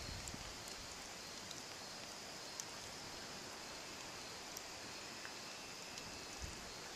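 Faint, steady outdoor ambience: an even hiss with a steady high-pitched drone, a few tiny clicks, and two low bumps from handling of the camera, one just after the start and one near the end.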